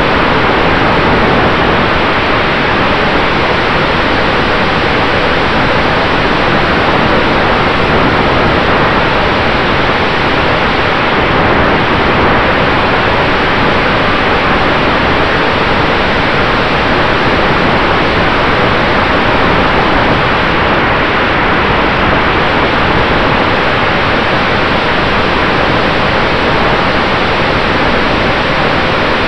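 Loud, steady rush of wind over the microphone of a camera mounted on a flying E-Flite F4U Corsair RC plane, with a faint steady whine from its brushless electric motor and propeller underneath.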